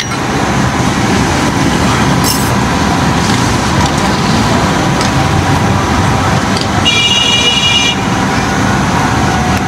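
Steady low rumble of road traffic, with a vehicle horn sounding for about a second, about seven seconds in.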